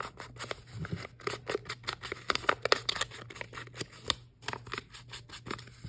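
Paper edges being distressed for a grungy, worn look: quick, irregular scraping strokes along the edge of a sheet, several a second.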